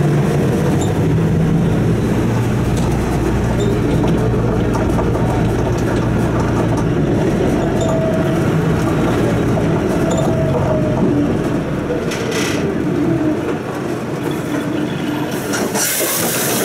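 Inside a city bus: the diesel engine runs steadily while the tyres rumble and rattle over cobblestones as the bus drives along. A short hiss comes near the end.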